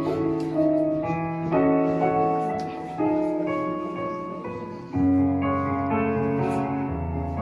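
Keyboard music: a slow instrumental introduction of held chords over a bass line, changing about every one and a half to two seconds.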